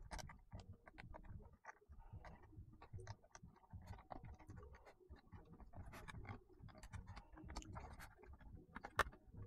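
Faint, irregular small clicks and handling noises of fingers pressing wire connectors into a circuit board inside a Bluetooth speaker's plastic housing, with one sharper click near the end.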